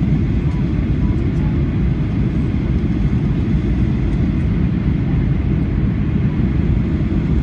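Steady low roar of a Boeing 737 in flight, heard from inside the passenger cabin: jet engine noise and rushing air, with a faint steady high tone over it.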